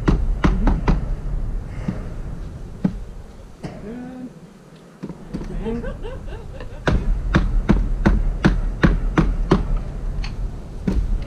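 Repeated sharp knocks of a wooden bee package being banged against the hive to shake the bees down into it. They come in a short run at the start and a longer run later of about three knocks a second, over a low rumble.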